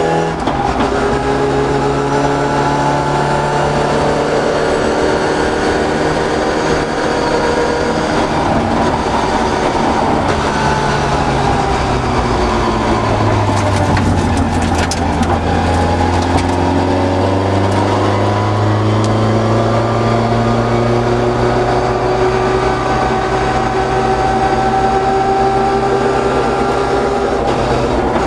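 Toyota Corolla GT 1600 rally car's engine heard from inside the cabin, revving hard through the gears at stage speed. About halfway through, the revs drop away for a corner and there is a brief spell of sharp clicking and rattling. Then the engine pulls in one long rising climb in pitch.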